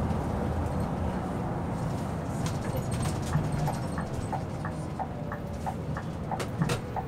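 Scania K 360 IB bus under way, heard from the cab: a steady engine and road hum, with an occasional sharp rattle. From about halfway in, the indicator ticks evenly, about three times a second, as the bus nears a junction.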